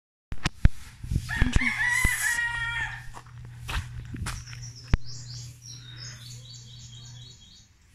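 A rooster crowing once, starting about a second in and lasting about two seconds, with a few sharp thumps around it. Then a small bird gives a quick series of high chirps.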